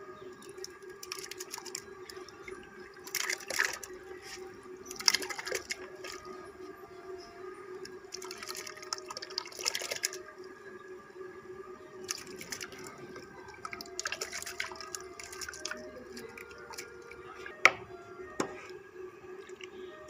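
Cracked wheat being pushed by hand out of a plastic tub into a pot of tomato-based liquid, landing in a series of short wet splashes. A couple of sharp knocks come near the end, under a steady low hum.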